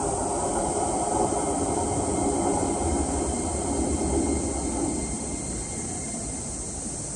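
Electric train running on the rails, a steady rumble that eases off after about five seconds, with a faint thin whine above it.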